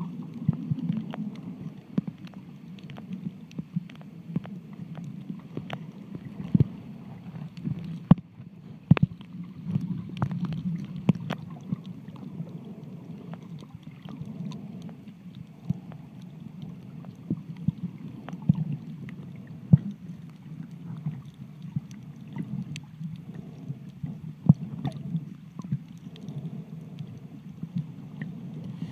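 Underwater sound picked up by a submerged camera while snorkeling: a steady, muffled low-pitched wash of moving water, broken by many scattered sharp clicks and taps.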